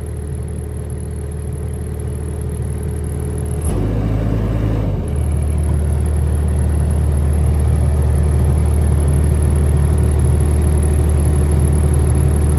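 Bobcat 331 mini excavator's Kubota diesel engine running steadily. About four seconds in the engine note briefly shifts, then it settles a little louder.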